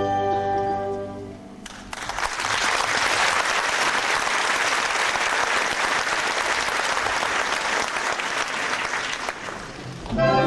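Theatre audience applauding for about seven seconds after the orchestra's last held chord dies away, about a second and a half in. The applause fades out, and the orchestra strikes up again near the end.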